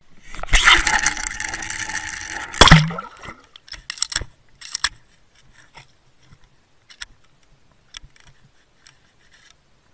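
Underwater camera on a fishing line cast out: a loud rush of air noise as it spins through the air, a sharp splash as it hits the water nearly three seconds in, then faint scattered clicks and rattles under water as the wobbler is retrieved.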